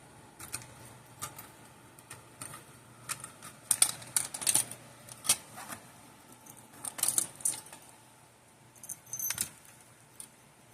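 Keys jangling and clicking in the locks of fire alarm pull stations as their covers are unlocked and opened. The sound comes as several clusters of sharp clicks and rattles.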